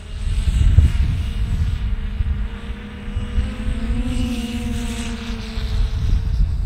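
Fata Morgana 570 X-class FPV quadcopter's motors and propellers whining in flight, the pitch climbing about four seconds in and easing back down as the throttle changes. A strong low rumble runs underneath.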